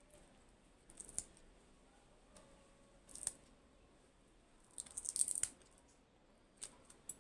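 Small scissors snipping and scraping at the adhesive tape that binds a stack of plastic-cased power MOSFETs: a few brief, crisp snips, with a longer run of cutting about five seconds in.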